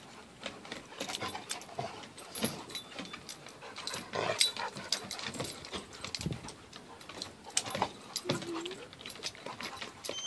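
Two dogs play-wrestling: scuffling, with paws and claws clicking on deck boards. There is a short whine about eight seconds in.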